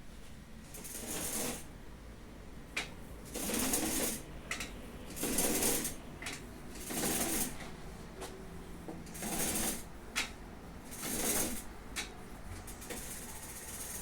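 A cord-operated window blind being worked by its cord: repeated rustling pulls, about one every two seconds, with a few light clicks from the mechanism in between.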